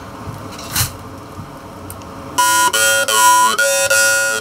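A jaw harp made by Shaun Jones starts being played about halfway through. It gives a steady twanging drone, plucked about three times a second, and its overtone melody rises and falls as the player's mouth shape changes.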